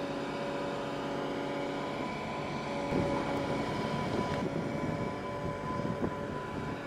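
Diesel power pack of a Goldhofer PST/SL-E self-propelled modular trailer running steadily as the trailer creeps along under a heavy load, with a steady high whine over the engine drone. Rougher, uneven noise joins about three seconds in.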